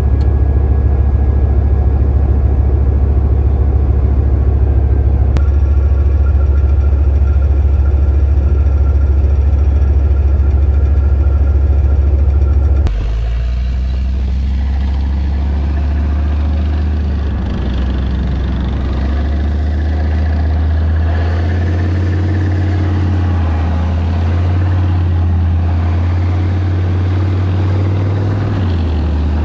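Leopard 1 tank's V10 multi-fuel diesel engine running. For the first thirteen seconds, heard through a camera mounted on the gun barrel, it is a loud, very steady low drone. After a cut about thirteen seconds in, the tank is driving, its engine note rising and falling.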